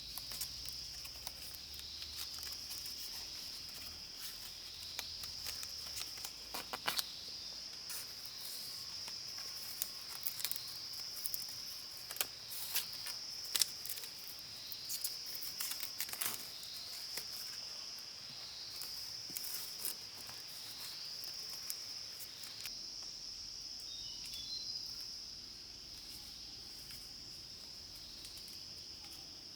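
Insect chorus of crickets or cicadas: a steady, shrill high buzz that swells in a repeating pulse every second or two. Scattered sharp clicks and crackles come through it, thickest in the middle stretch.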